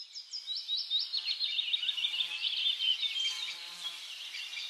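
Birds chirping and twittering, many quick high notes overlapping.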